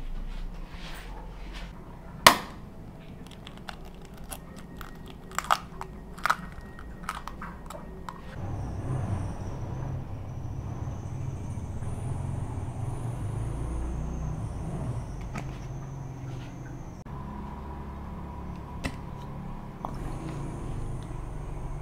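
Ground beef handled in a glass mixing bowl: scattered clicks and small knocks, with one sharp knock about two seconds in. From about eight seconds in, a low rumble with a steady high whine runs under it, breaks off near seventeen seconds and comes back near twenty.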